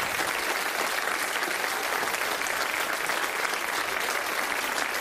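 Studio audience applauding, a dense, steady clapping that holds at one level throughout.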